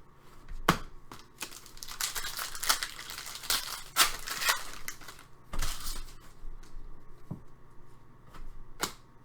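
Hockey card pack wrappers being torn open and crinkled, with the cards rustling and clicking as they are handled in a series of irregular bursts.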